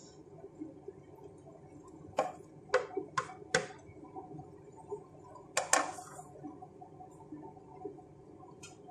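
Wooden spatula knocking against a large cooking pan while tossing spaghetti with vegetables. There are four sharp knocks about two seconds in, a louder double knock a little past the middle, and one more near the end.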